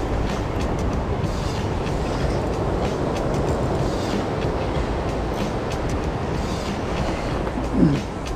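Surf breaking against rocks close by, a steady loud rushing roar, with a short low falling sound near the end.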